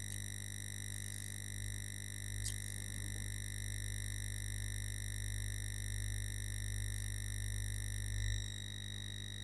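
Steady low electrical hum with a thin, high steady whine, the background noise of the recording, with one faint click about two and a half seconds in.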